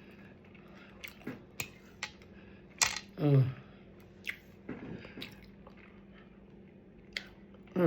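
A person chewing with the mouth close to the microphone: scattered wet smacks and clicks, with a short voiced "mm" a little over three seconds in.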